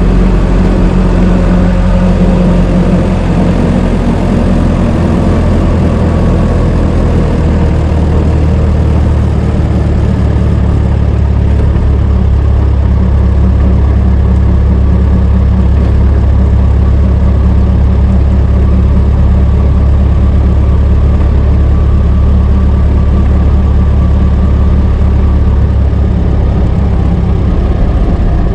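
1926 Ford Model T's four-cylinder engine running steadily as the car is driven, a deep low-pitched engine sound throughout.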